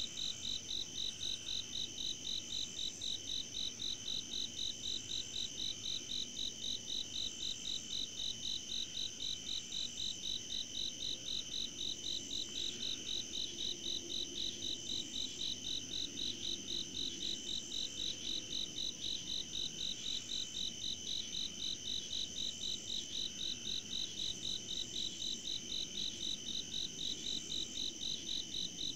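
Night insect chorus of crickets calling: a steady high trill with one caller pulsing evenly about three times a second, unbroken throughout.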